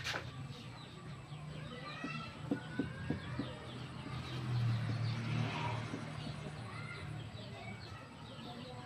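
Small birds chirping repeatedly over a steady low hum that swells about halfway through, with a few light knocks.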